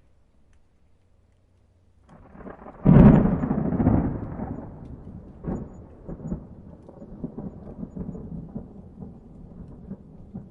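A thunderclap: after about two seconds of near quiet, the sound builds and breaks into a loud crash about three seconds in. It then rolls on as a low rumble with scattered crackles, slowly fading.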